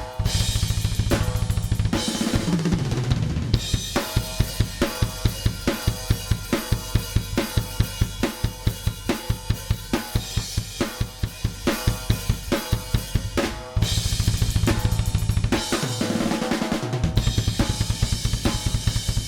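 Recorded band music led by a full drum kit (kick, snare, hi-hat and cymbals) over a bass line, keeping a steady beat with a short fill or break about two seconds in and another near the end.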